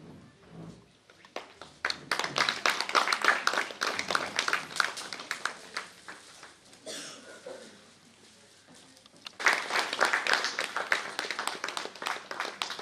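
Audience applauding in two bursts, the first starting about a second and a half in and fading, the second starting again about three seconds later and running on.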